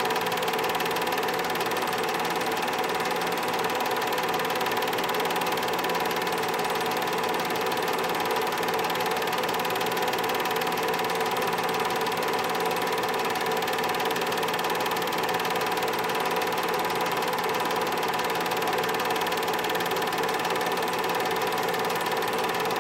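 Film projector running: a steady mechanical whir with a constant hum, unchanging throughout.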